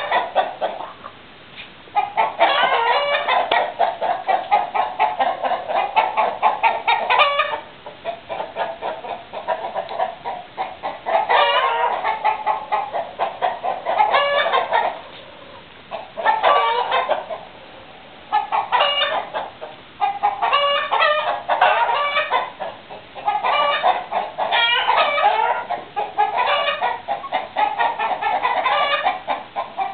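Domestic chickens clucking in rapid runs of calls. The calls come in loud bursts of a second to several seconds, with brief lulls between.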